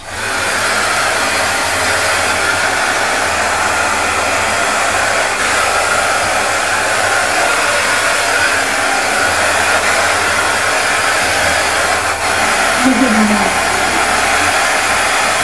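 Handheld hair dryer coming on and blowing steadily, used to dry a wet dog's coat after a bath.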